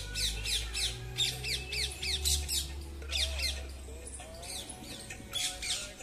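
A flock of rose-ringed parakeets screeching: many shrill, sharply falling calls in quick succession, thinning out in the last two seconds.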